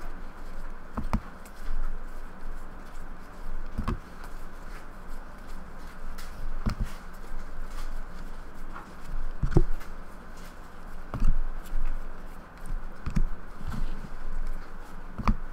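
Hockey trading cards being flipped through by hand one at a time, with a sharp little flick or tap as each card moves across the stack every two to three seconds, over a faint steady hum.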